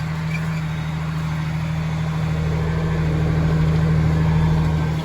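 Engine running steadily at an even speed, growing a little louder toward the end.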